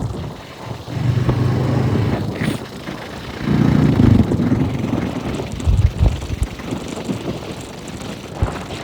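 A motor vehicle's engine running, its low hum swelling and fading, loudest about a second in and again near four seconds, over a rough rumbling noise.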